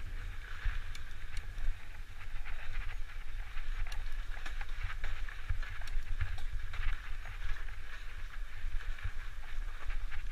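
Mountain bike riding over a leaf-strewn dirt singletrack: steady tyre noise with scattered clicks and rattles from the bike over bumps, and a low rumble of wind on the microphone.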